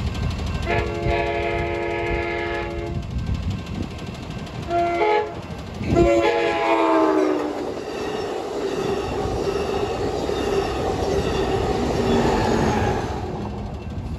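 Amtrak Pacific Surfliner passenger train sounding its horn for a grade crossing: a long blast, a short blast, then a final blast that drops in pitch as the train passes. This is followed by the rumble and clatter of the coaches' wheels on the rails, which fades near the end.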